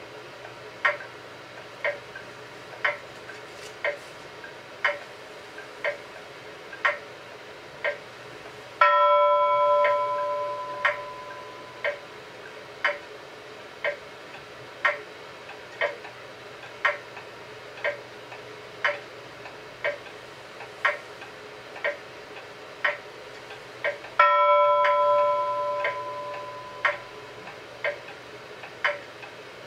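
A clock ticking about once a second. A bell-like chime rings out twice, about nine seconds in and again about twenty-four seconds in, each fading over two or three seconds while the ticking carries on.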